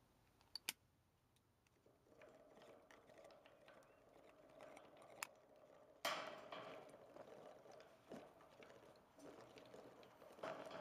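Faint bubbling and gurgling of water inside a homemade plastic-bottle bong as air is drawn through its metal stem. It starts about two seconds in and turns louder about six seconds in. Two sharp clicks, one near the start and one about five seconds in.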